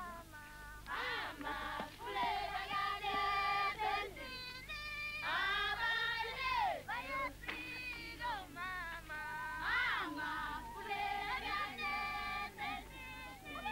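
Several high voices singing together in phrases, with notes that swoop up and down.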